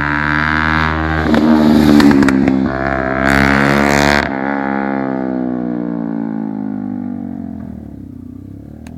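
Motorcycle fitted with an aftermarket Leovince exhaust passing by: its exhaust note builds to loudest about two seconds in, drops abruptly a little after four seconds, then falls in pitch and fades as the bike rides away.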